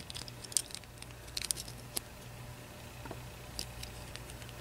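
Faint, irregular clicks and taps of fingernails and small plastic Lego minifigure pieces being handled, as a tiny accessory is worked into a minifigure's hand, over a low steady hum.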